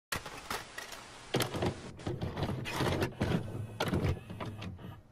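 VCR mechanism loading and starting a videotape: an irregular run of clicks and clunks over a low hum, starting suddenly.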